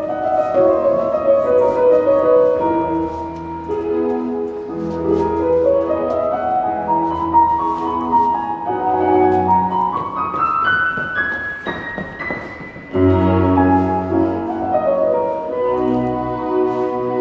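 Classical-style music led by piano. A run of notes climbs steadily over several seconds and thins out, then the full sound comes back in loudly about thirteen seconds in.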